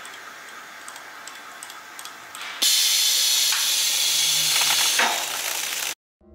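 Foam production line machinery ticking lightly, then about two and a half seconds in a sudden, louder steady hiss from the line's gas burner bar, cutting off abruptly near the end.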